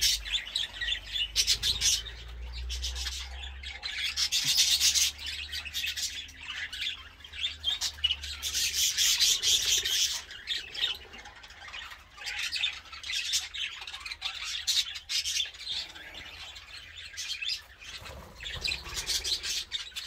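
Aviary budgerigars chattering and warbling, in bursts of a few seconds at a time.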